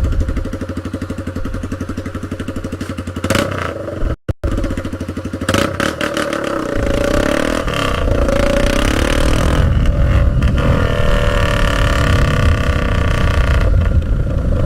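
Motorcycle running on a bare exhaust pipe with no muffler: a rapid, even pulsing beat at first, then, after a brief dropout about four seconds in, a hard acceleration with rising pitch that stays loud to the end.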